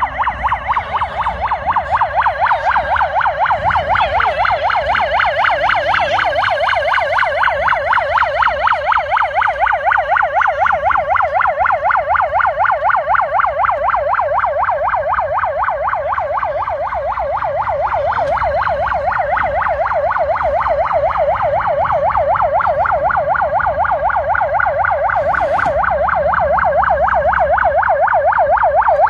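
Electronic emergency siren on a children's hand-pulled fire cart, sounding a fast yelp whose pitch sweeps up and down several times a second.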